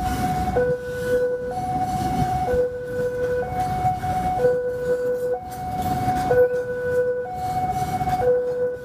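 Level-crossing warning alarm sounding a continuous two-tone high-low signal, each tone held about a second, over the low rumble of a container freight train's wagons rolling past.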